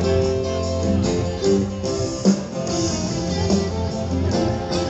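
Instrumental passage of a guitar-led song: strummed and plucked guitar over a steady bass line, with a few sharp percussive hits.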